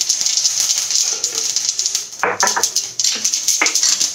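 Mustard seeds sizzling and crackling in hot oil, many quick pops, as they are tempered for upma. From about two seconds in, a few louder knocks sound over the crackle.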